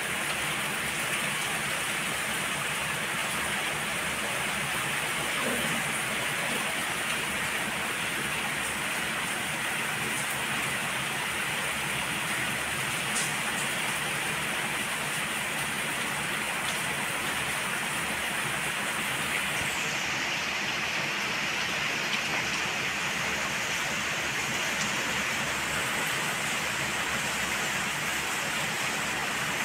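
Heavy rain falling steadily: a dense, even hiss of downpour, turning slightly duller about twenty seconds in.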